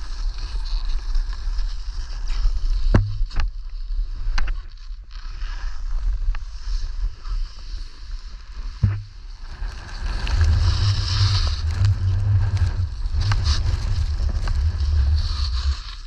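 Wind rumbling on the microphone while descending a ski run, over the hiss of sliding on snow, with a few sharp knocks in the first half and heavier wind buffeting in the second half.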